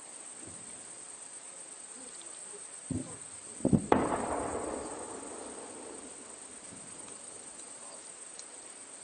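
Artillery blast: a soft thud about three seconds in, then a sharp double boom nearly a second later whose rumble dies away over about two seconds.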